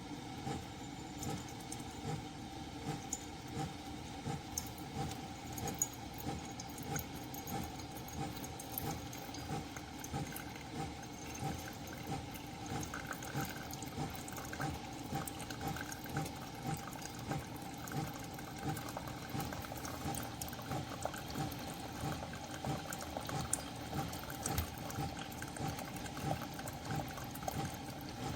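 Single-serve coffee brewer running through a brew: a steady machine hum with regular pulses while hot liquid pours and trickles into the cup.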